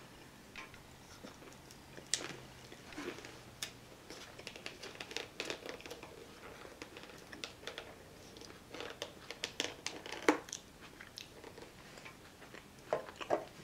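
A small plastic sauce cup handled in the fingers, giving scattered light clicks and crinkles, with a sharper click about two seconds in and another about ten seconds in. Quiet chewing mixes in with them.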